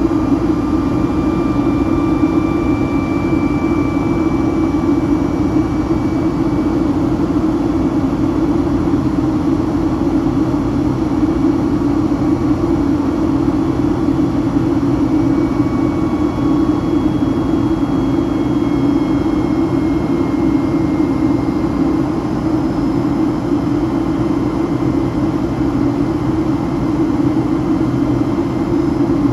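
Rolls-Royce RB211-535E4B turbofan of a Boeing 757-200 heard from inside the cabin at a window seat in flight: a loud, steady drone with a strong low hum, and faint high tones that drift slowly in pitch.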